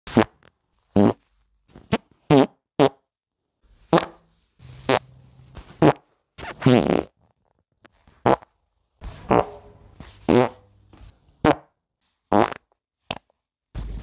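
A string of about a dozen wet, fatty fart sounds, each short and pitched, with brief gaps between them and a longer one about seven seconds in.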